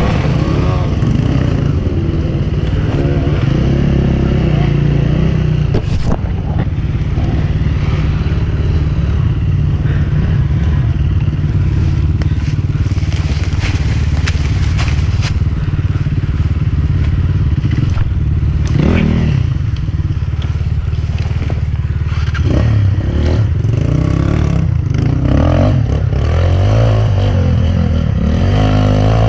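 Enduro dirt bike engine running with its revs shifting up and down, mixed with scattered knocks and clatter.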